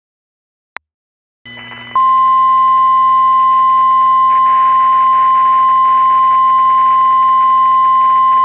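Single steady alert tone of about 1 kHz, the NOAA Weather Radio 1050 Hz warning alarm tone that marks a warning message. It starts about two seconds in over a low background hum and hiss, after a short click.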